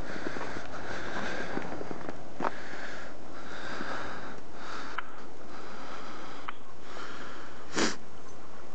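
Footsteps crunching through fresh snow in an irregular walking rhythm over a steady hiss, with a few sharp clicks and one louder knock near the end.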